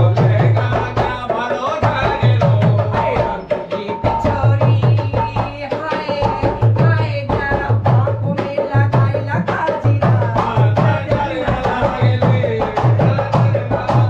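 Folk song sung to a dholak drum that keeps a steady, repeating beat, with sharp slaps on top of the deep strokes.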